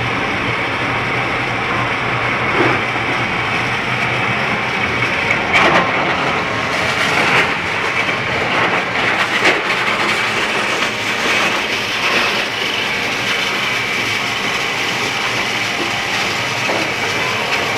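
Stone grist mill running: millstones grinding, with drive belts and pulleys turning, a steady clattering machine noise. A few louder knocks come between about five and ten seconds in.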